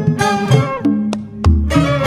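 Instrumental passage of traditional Sundanese pupuh accompaniment with no voice: plucked string notes over a low bass line, several notes struck then left to die away.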